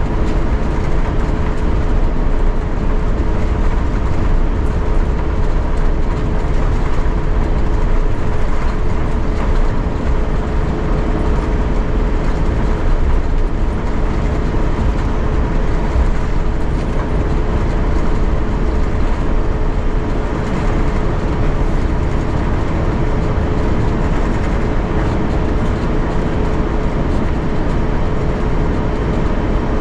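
Cabin noise of an Airbus A350-900 taxiing after landing: a steady low rumble from the rolling gear and idling Rolls-Royce Trent XWB engines, with a steady hum held under it.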